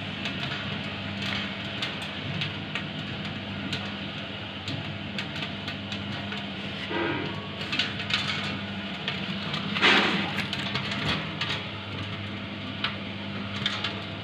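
Mini popcorn-making machine running: a steady electric-motor hum under a dense crackle with many scattered sharp clicks, and one louder burst about ten seconds in.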